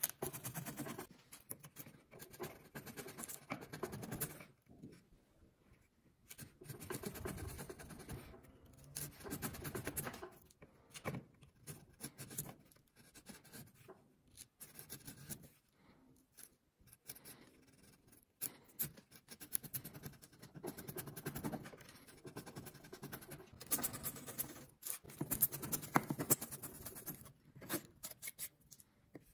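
Steel bench chisel paring wood off a tenon, each stroke a scraping, crackling slice as a shaving curls off. The cuts come in runs of a few seconds with short pauses between them.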